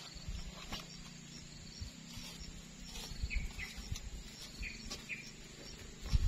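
Quiet outdoor ambience: an uneven low rumble and thumping, with four short high chirps about halfway through.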